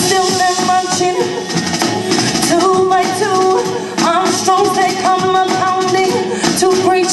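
A woman singing a song live into a microphone over musical backing, holding long, slightly wavering notes.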